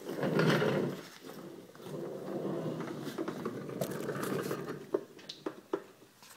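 Rustling and scraping of a person getting down and moving under a car, loudest in the first second, then a few light clicks and taps near the end.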